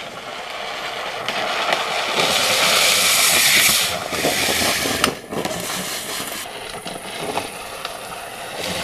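Drift trike's hard plastic rear wheels sliding on asphalt: a harsh scraping hiss that swells as the trike passes close, loudest around three to four seconds in, then drops and carries on lower. A sharp knock just after five seconds in.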